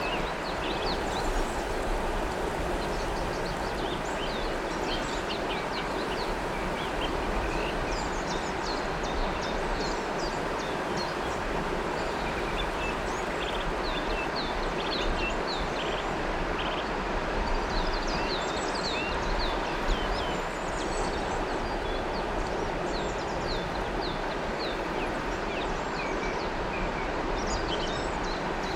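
River water flowing steadily, with many birds chirping in short high calls over it throughout.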